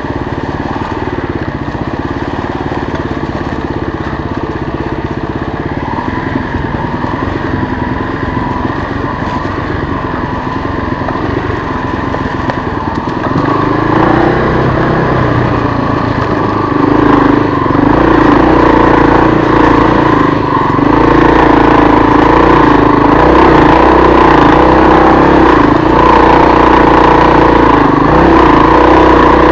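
1996 Kawasaki KLR250's single-cylinder four-stroke engine running as the bike rides along. About halfway through it gets louder and higher in pitch as the throttle opens, and louder again a few seconds later.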